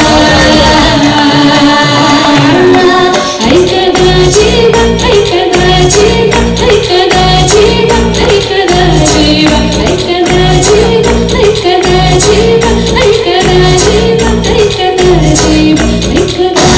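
Amplified dance song: a backing track with a woman singing into a microphone. The first few seconds hold sustained melody, then a steady driving beat comes in about three seconds in, with a short melodic figure repeating over it.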